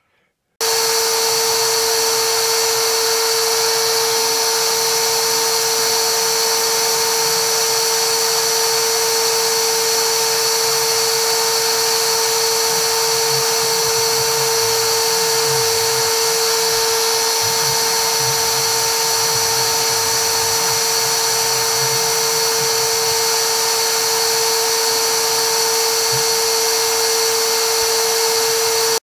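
Inventables X-Carve CNC router running as its spindle and small bit engrave into a wooden board: a loud, steady high whine over a hiss.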